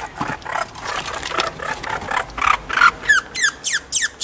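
A baby squirrel being handled, first with rustling and scraping, then from about three seconds in a quick series of high squeals, about three a second, each falling in pitch.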